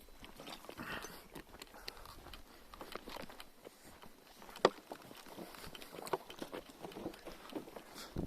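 Irregular crackles and small clicks, with one sharp, louder click about four and a half seconds in.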